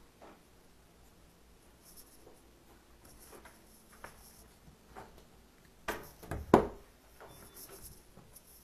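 Handling noise and soft footsteps from a phone being carried through a small room, with a cluster of loud knocks and thumps about six seconds in.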